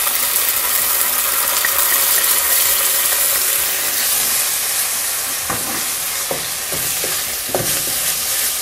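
Chopped onions and tomato paste sizzling steadily in a hot frying pan while a wooden spatula stirs them, with a few scraping strokes in the second half.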